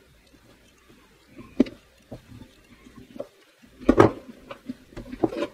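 Handling sounds as pliers and fingers work the wires loose inside an opened plastic cordless-drill housing: a string of irregular clicks and knocks, the loudest a few close together about four seconds in.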